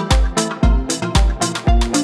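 Electronic dance beat made in the Groovepad music app: a deep, booming kick drum hitting in a syncopated pattern, about five times in two seconds, under held bass and synth notes and crisp percussion.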